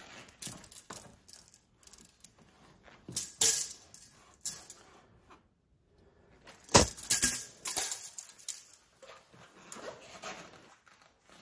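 Bike parts and packaging being handled during an unboxing: irregular clicks, knocks and rustles, with the loudest clatter about seven seconds in.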